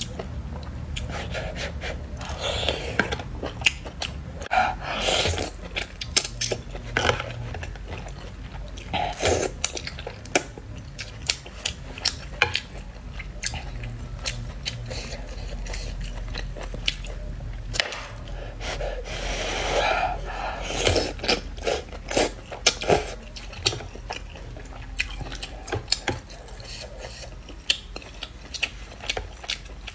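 Close-miked eating of noodles and broth with chopsticks: chewing and mouth sounds with a few longer slurp-like rushes, and many short sharp clicks of the chopsticks against the plastic bowl.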